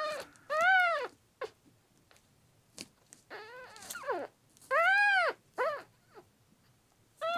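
Kitten about eleven days old mewing repeatedly: short, high cries that rise and fall in pitch, the two loudest about a second in and about five seconds in, with quieter mews between.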